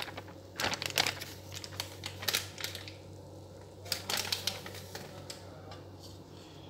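Plastic flour packet crinkling and clicking in scattered bursts as the last of the gram flour is shaken out of it into a kadai, then set down about four seconds in.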